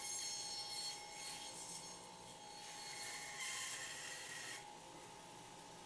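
Meat band saw running with a steady hum, its blade rasping through frozen rohu fish as pieces are fed into it. The cutting sound is strongest about a second in and again for over a second in the middle.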